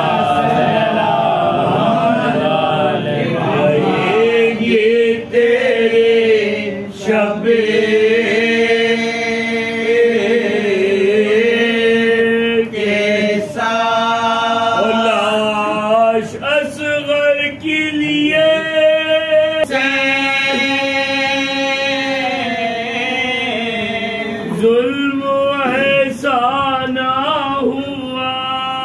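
A group of men chanting a Muharram mourning lament together without instruments, in long held notes that waver and slide in pitch.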